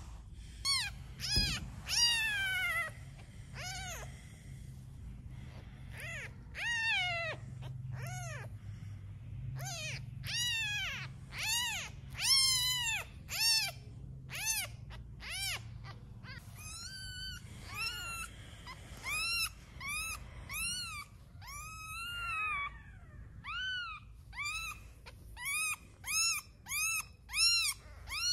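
Newborn kitten mewing again and again: short, high-pitched cries that rise and fall in pitch, about one or two a second.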